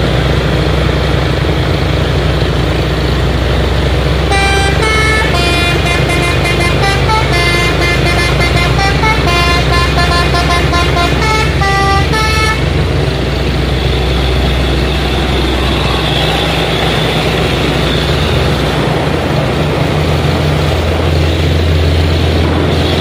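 Heavy diesel truck engines pulling up a steep climb, with a multi-note musical horn playing a quick tune of stepped notes from about four seconds in until about twelve seconds. Near the end one truck's engine grows louder as it passes close.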